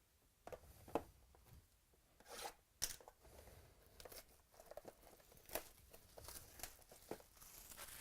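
Trading card pack wrappers being torn open and crinkled, with cards handled, in short irregular rustles and snaps.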